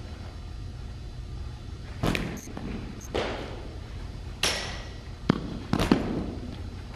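Baseballs striking a catcher's mitt and gear as he receives and blocks pitches: about five separate thuds and knocks, the two sharpest near the end, each with a short echo. A steady low hum runs underneath.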